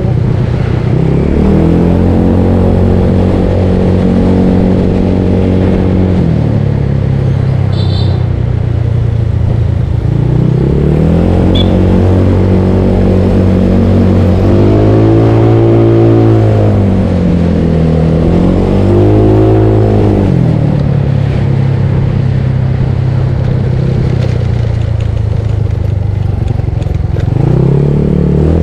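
Bored-up Yamaha Mio Soul scooter's single-cylinder engine under way. Its pitch rises as it accelerates, holds, then drops back, over and over: once early, then twice more in quick swells in the middle, and again near the end.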